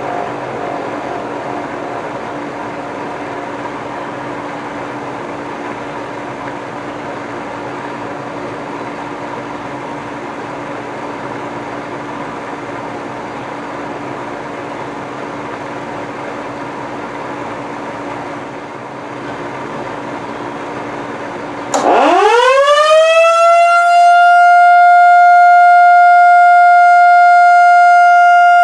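A 1955 Federal Model 2 electromechanical siren growling at low speed with a low, steady hum, then about three quarters of the way through spinning up quickly into a loud, steady high-pitched wail: the start of its alert signal.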